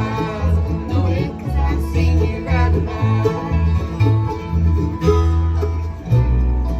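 Bluegrass band playing a song, with banjo picking over guitar and a low bass line moving from note to note.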